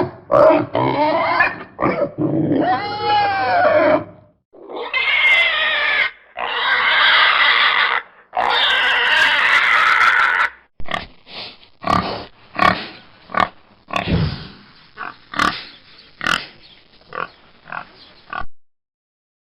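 Domestic pig grunting and squealing: mixed grunts and squeals at first, then three long loud squeals of about two seconds each, then a run of short grunts at about two a second.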